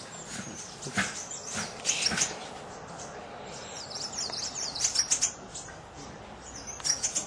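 Forest birds calling: a few sharp high chirps in the first couple of seconds, a quick run of high chirps around the middle, and two or three more near the end.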